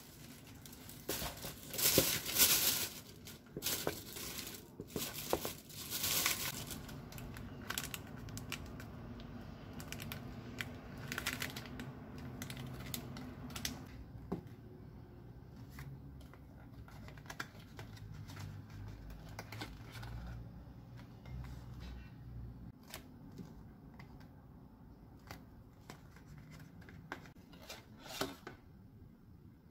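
Paper takeout packaging rustling and crinkling as a hot dog in a paper box is unpacked and set on a ceramic plate. The rustling is loudest in the first several seconds and again a few seconds later, then gives way to quieter light clicks and handling.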